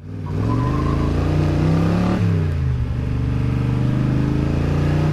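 Ford small-block V8 of a Shelby Cobra replica pulling under acceleration. The revs rise, drop sharply about two seconds in, then hold and climb slowly again.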